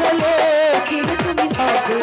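Live Bangladeshi folk music accompanying a jatra song: a hand drum's deep bass strokes that slide down in pitch every half second or so, bright jingling hits above them, and a held, wavering melody note early on.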